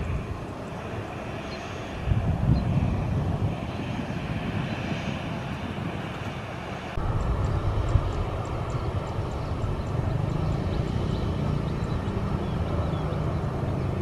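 Jet airliner engines running: a steady rumble with a high whine from a taxiing Boeing 737. About halfway through it changes abruptly to a louder, deeper rumble from an airliner on the runway.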